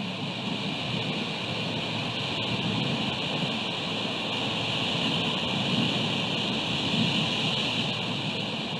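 Wind and rain on an exposed outdoor microphone: a steady hiss over a low rumble.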